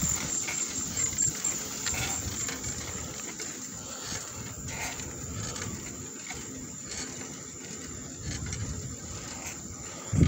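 Insects trilling steadily on one high pitch over a low, uneven rumble.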